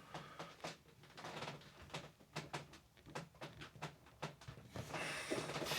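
Small irregular clicks, taps and light scraping of hard plastic: a tablet case and prying tools being handled while working at the case seam, with a longer scrape near the end.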